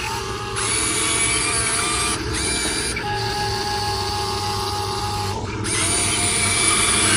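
Small electric motors and gearboxes of a radio-controlled dump truck whining. The whine shifts in pitch and stops briefly a few times, as the drive and tipping motors start and stop.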